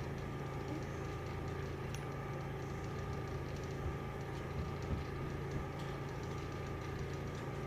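A small motor humming steadily, with a few faint taps.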